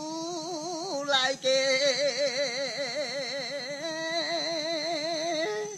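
A Mentawai sikerei's solo chant: one man's voice holding long notes with a strong, wavering vibrato, breaking for a breath about a second in and stepping up in pitch after it. A steady high-pitched whine sits behind the voice.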